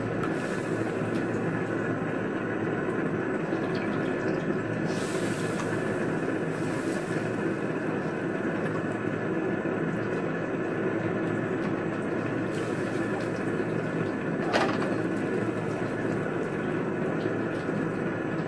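Beef and chilies simmering in a little water in a steel wok over a gas burner: a steady bubbling hiss, with a plastic spatula stirring and scraping in the wok now and then, one sharper scrape about two thirds of the way through.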